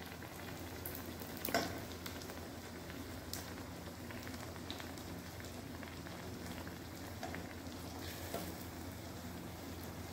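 A wheat-flour malpua deep-frying in hot ghee in a kadai: a steady, faint sizzle and bubbling of the fat around the batter. A few faint clicks are heard, the clearest about a second and a half in.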